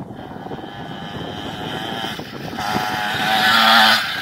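A children's mini bike running across the field, a buzzing motor note that grows louder and higher about two and a half seconds in, then drops off sharply just before the end.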